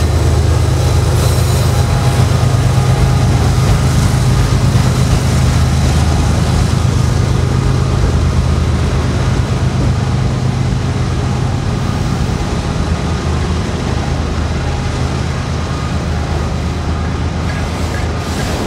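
A freight train passing close by. A GE ES44DC diesel locomotive goes past first, and its low engine rumble carries on and slowly fades as a long string of autorack cars rolls by with steady wheel-on-rail noise.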